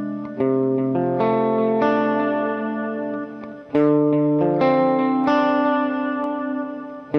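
Greco EG-135 electric guitar played through an amplifier with some distortion: a series of chords, each struck and left to ring and fade before the next.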